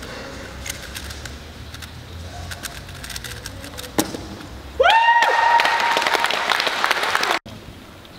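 Scattered light clicks of speedcubes being turned, then a sharp slap about four seconds in. Just after it a voice shouts with a rising then held pitch over loud applause and cheering, which cuts off abruptly near the end.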